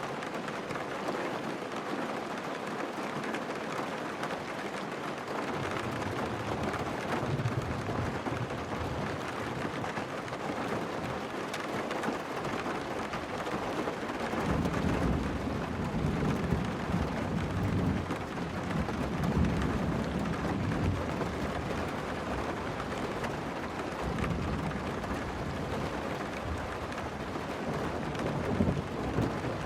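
Steady hiss of heavy monsoon rain, with deep rolling thunder rumbling in from about halfway through and flaring again near the end.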